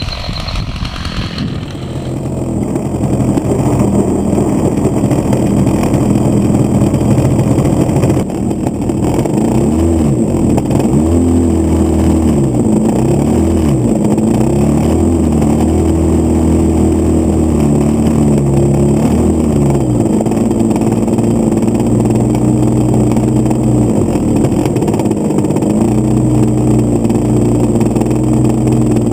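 Small single-cylinder 30cc two-stroke gas engine of an RC model plane, heard close up from the onboard camera in the cabin, running at low speed while taxiing on grass. It grows louder over the first few seconds, its speed rises and falls several times in the middle, then holds steady.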